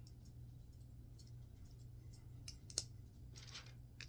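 Lego plastic pieces clicking lightly as they are picked up and handled, a scatter of small sharp clicks with a sharper one a little before three seconds in and a brief rustle about half a second later. A steady low hum runs underneath.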